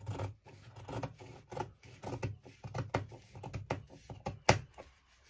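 Fabric scissors snipping through printed ankara cotton, a run of quick cuts about three a second, with one sharper snip near the end before the cutting stops.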